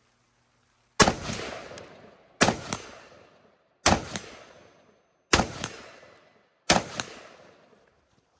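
Rifle fired in five quick pairs of shots about a second and a half apart, each pair a double tap on one target, every shot followed by a long echoing tail.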